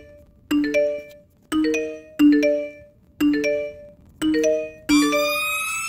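Music: a bell-like, rising three-note chime figure repeating about once a second. Near the end a held tone enters and slides slowly upward.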